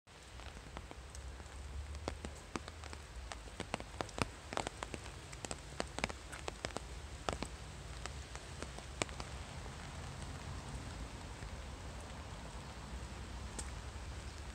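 Steady rain falling, with many sharp, irregular ticks of individual drops striking close by, thickest in the first nine seconds or so, over a low rumble.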